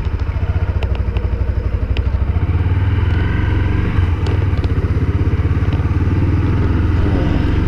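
Honda CB Twister's single-cylinder engine heard from the rider's seat while pulling away at low revs, with its exhaust pulses plainly audible. It picks up and runs harder about two and a half seconds in, with a short dip near four seconds, then holds steady.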